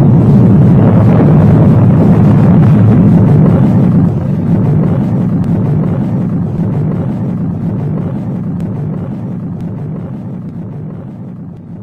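Loud, deep rumble of a huge explosion. It drops a step about four seconds in, then slowly dies away.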